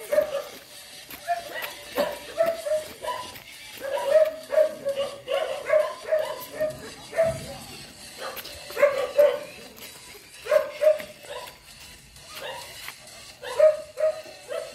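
A dog barking in runs of quick, short barks, several a second, with pauses between the runs.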